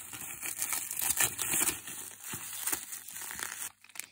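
Bubble-wrap and plastic packaging crinkling and crackling as it is pulled open by hand, dying away near the end.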